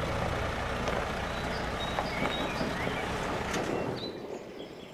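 Concrete mixer truck's diesel engine running steadily, with a low hum and a few sharp clicks. Near the end the engine sound drops away, leaving a quieter background with faint bird chirps.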